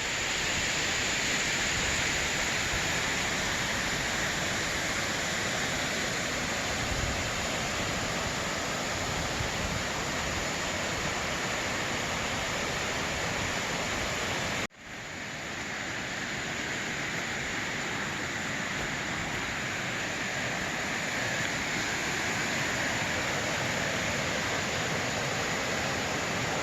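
Waterfall rushing, a steady wash of falling water that breaks off for an instant about halfway through and then picks up again.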